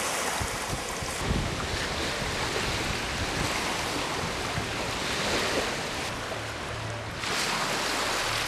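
Small waves washing onto a pebble river shore, with wind on the microphone.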